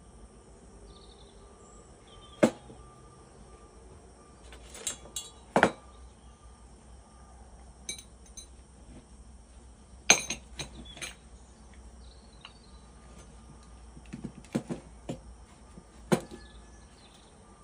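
Metal parts of a lead-casting setup being handled on a workbench: a few sharp metallic clanks and knocks, spaced several seconds apart, as the mould for homemade lead pirks is worked and put back together.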